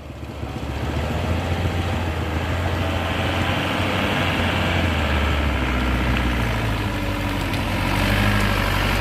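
Diesel truck engine running under load, growing louder over about the first second and then holding a steady low drone.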